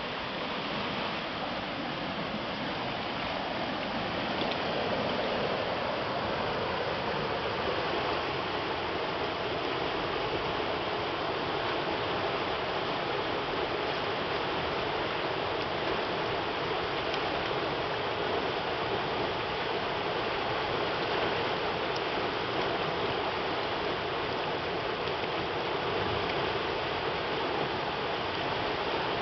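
Small garden river swollen by typhoon rain, its rushing water making a steady rush that swells slightly about four seconds in.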